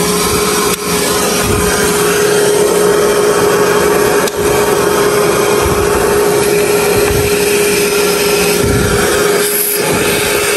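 Vacuum cleaner running steadily with a constant hum, its hose nozzle sucking dust off the busbars and breakers inside a distribution board. The sound dips briefly twice in the first half.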